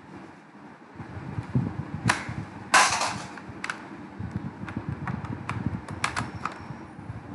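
A series of sharp clicks and knocks, with one longer, louder rustling knock about three seconds in, over a low rumbling background noise on an open video-call microphone.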